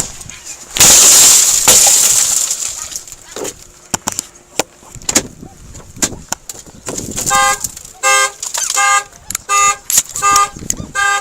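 A car's passenger side window smashed in: a burst of shattering glass about a second in, then scattered tinkles of falling glass. About seven seconds in the car's alarm goes off, sounding the horn in short regular honks about twice a second, triggered by the break-in.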